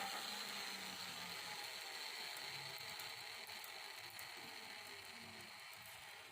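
Steady mechanical hum and hiss, fading gradually.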